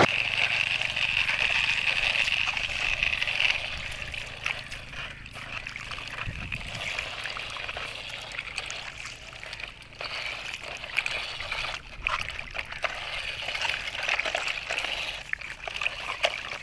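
Shallow water splashing and trickling as plastic toy trucks are dragged through it, with small scattered clicks; louder for the first three or four seconds, then softer.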